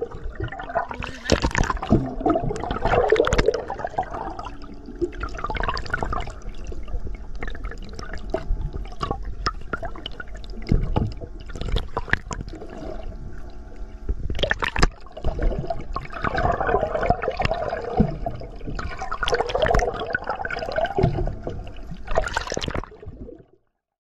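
Water sloshing and gurgling around an underwater camera, with swells of bubbling and scattered small clicks. It cuts off suddenly near the end.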